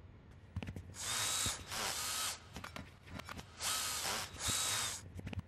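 Handheld power drills whirring in four short bursts, each about half a second, as they drive the bolts on a metal dome cover. Small clicks fall between the bursts.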